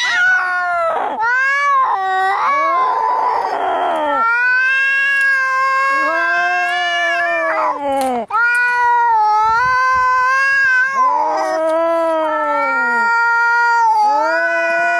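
Angry domestic cats caterwauling in a fight standoff: long, drawn-out yowls that waver and bend in pitch, one after another. A short harsh noisy cry comes about three seconds in.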